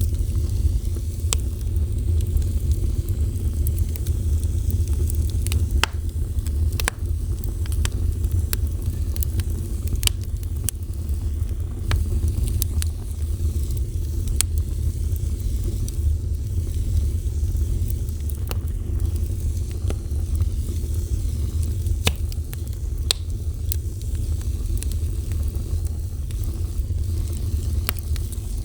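A fire burning, with a steady low rumble and irregular sharp crackles and pops scattered throughout.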